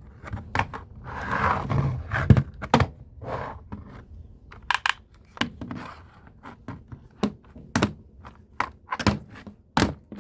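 Irregular series of sharp knocks and clicks, like hard objects being handled and set down, with a brief scrape about a second in.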